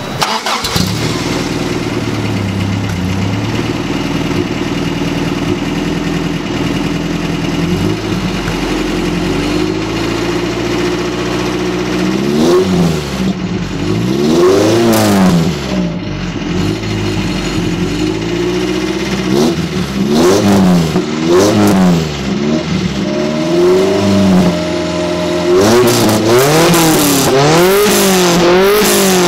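1988 Toyota pickup's 22R four-cylinder engine breathing through an LCE Performance Street Header and stainless ProFlow exhaust, heard close to the tailpipe while the truck stands still. It idles steadily, then is revved up and let fall back several times, with a quick string of blips near the end.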